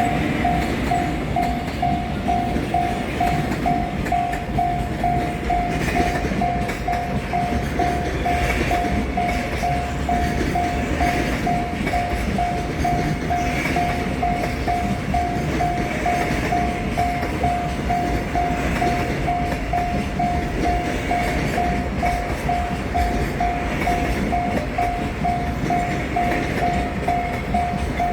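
A Japanese level-crossing alarm rings steadily at about two dings a second while a long freight train's wagons rumble past on the rails, with a regular clatter of wheels over the rail joints.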